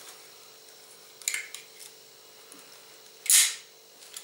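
Plastic clicks from a Schrade headlamp's housing being worked closed by hand: a light click about a second in, then a louder, sharper snap a little after three seconds.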